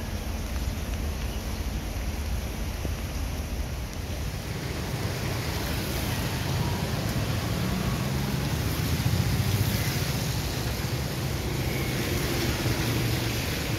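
Steady hiss of rain and wet road noise, with the engines of auto-rickshaws, motorcycles and cars running in street traffic. The engine hum gets stronger about halfway through.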